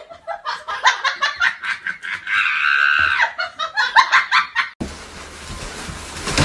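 Laughter in quick repeated bursts, about five a second. It breaks off suddenly about five seconds in, and a steady hiss follows.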